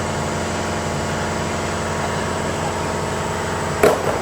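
Car engine running with a steady low hum, and a short louder noise near the end.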